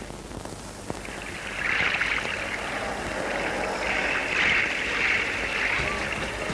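Sea waves washing against the shore: a rushing hiss that swells twice and falls back.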